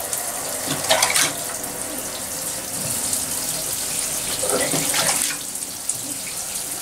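Water splashing and trickling as hands scoop a rosemary herbal rinse over a wet dog's face, over a steady running-water hiss, with louder splashes about a second in and again around five seconds.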